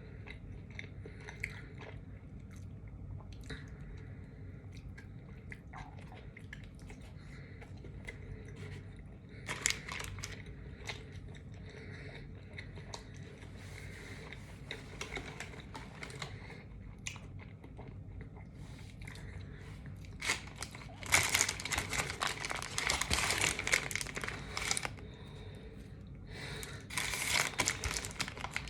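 Close-up chewing and biting of a Romanburger sub sandwich, wet and crunchy, with scattered small clicks. Louder, denser crunching and crackling comes about three-quarters of the way through and again near the end.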